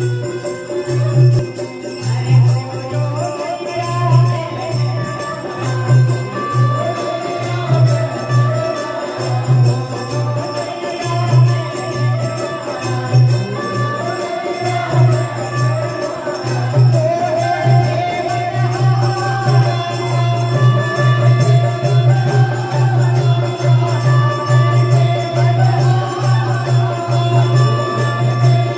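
Indian devotional folk music: tambourine jingles and a steady beat under a held drone and a wavering melody line.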